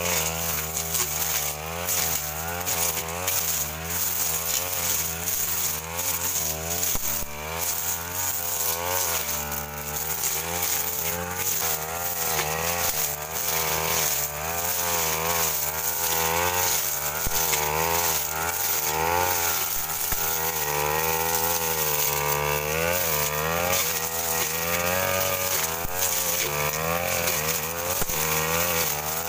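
Backpack brush cutter's engine running under load as the blade cuts through ferns and undergrowth, its speed rising and falling again and again as the throttle is worked.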